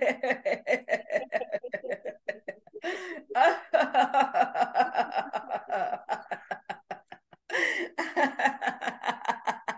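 A woman laughing in quick, rhythmic pulses, broken by two short pauses.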